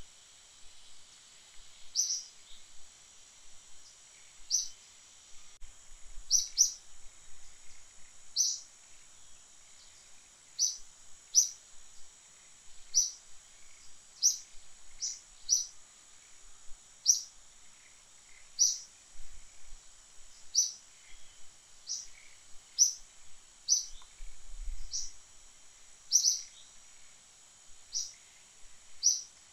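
A bird repeating a short, high chirp roughly once a second or two, now and then in quick pairs, over a steady high-pitched insect drone.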